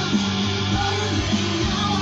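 Guitar music with a strong bass line playing through a portable battery-powered speaker, its bass strong enough to set the membranes swinging.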